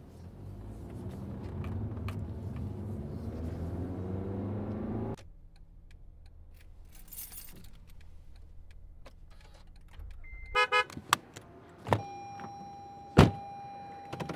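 A string of car sounds. First an engine accelerates, its pitch rising, for about five seconds, then it drops to a quieter low hum. Near the end come a quick run of electronic beeps and a few clicks and thumps, then a steady chime tone with one loud sharp thump.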